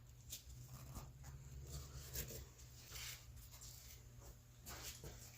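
Faint scattered clicks and rustling of plastic door-panel clips being pushed back onto a car door panel, over a steady low hum.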